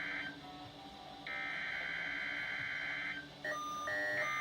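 NOAA Weather Radio SAME header data bursts of a Required Weekly Test. The first burst ends just after the start, a second runs about two seconds, and a third begins near the end. A separate repeating beep starts just before the third burst: a weather radio receiver alerting to the test.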